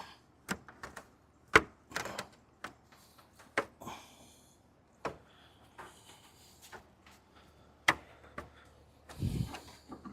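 Irregular sharp clicks and knocks of a plastic grille being pressed into place on a Jeep, its mounting pins seating into their holes. A duller thump comes near the end.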